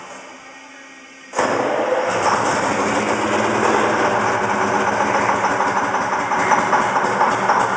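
Detroit Diesel 4-71 two-stroke diesel in an old GMC 650 truck suddenly firing about a second and a half in, then running loudly with a fast, dense beat, long dormant and being started for the first time in years.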